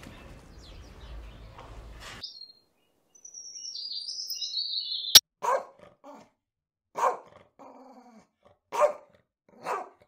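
Doberman pinscher barking: four loud barks in the second half, the first about five seconds in and then every second or two.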